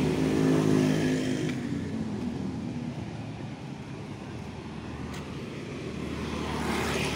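Motor scooter engine passing along the street, its hum fading away over the first second or two, over steady traffic noise that swells again near the end.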